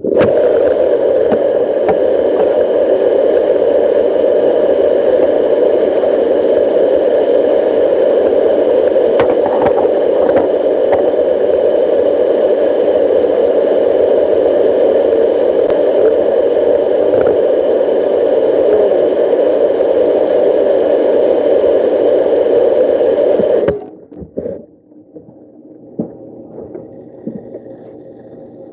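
Kitchen faucet running hard into the sink as a steady rushing noise, shut off abruptly about 24 seconds in, followed by quieter handling sounds.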